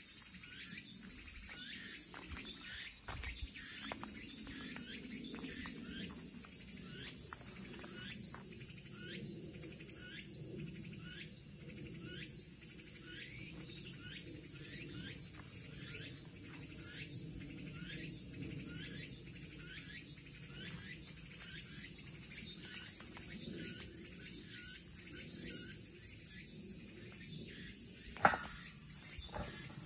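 Steady high-pitched insect chorus, with a run of short falling chirps repeating about twice a second over it. One sharp click sounds near the end.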